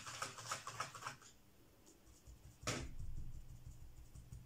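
A damp sponge rubbed quickly in a watercolour paint pan makes a scratchy rustle for about the first second. After a short pause comes one sharp knock, then soft, dull pats as the sponge is dabbed onto paper through a cardboard stencil.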